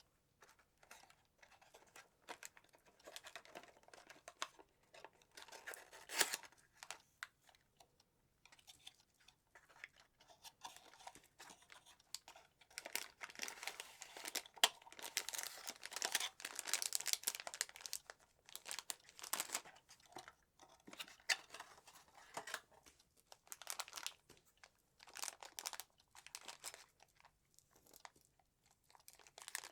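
Nuts being handled, with irregular bursts of crinkling, crunching rustles and small sharp clicks.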